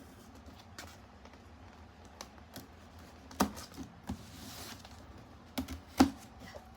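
Hands working at a cardboard box: scattered light clicks and taps, with a short scratching rasp near the middle and two louder knocks, one a little before the rasp and one near the end.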